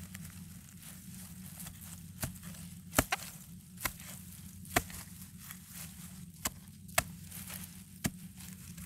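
Pointed hand digging tool jabbing into dry soil and leaf litter: about eight sharp strikes at uneven spacing while digging out a wild yam tuber.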